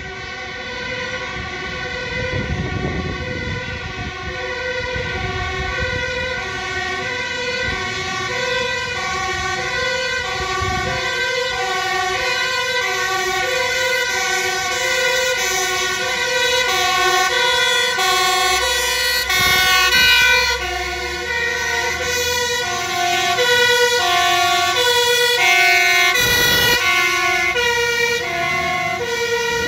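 Two-tone sirens of fire engines on an urgent run, the high and low notes alternating steadily; in the later part more than one siren sounds at once, out of step. Truck engine rumble under the sirens.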